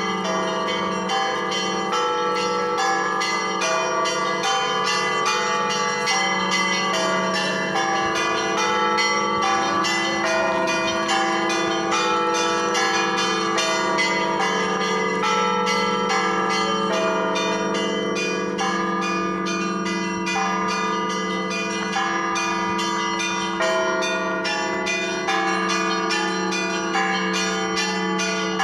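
Russian Orthodox church bells ringing together in a festive Easter peal: smaller bells struck in a quick, continuous pattern over the long hum of a large bell.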